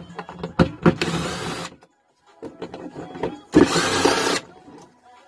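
Cordless power driver running in two short bursts, about a second in and again past three and a half seconds, backing out the small cover bolts of a Yamaha Aerox scooter water pump. Sharp metallic clicks of the bit and bolts come between the bursts.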